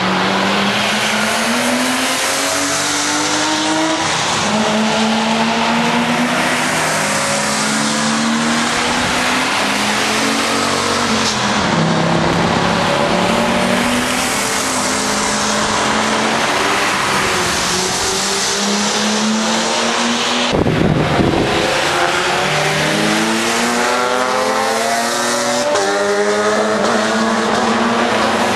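Several track cars, among them BMWs, revving hard and changing up through the gears as they pass one after another, their engine notes overlapping and rising and falling. About three-quarters of the way through there is a brief, loud rush of noise.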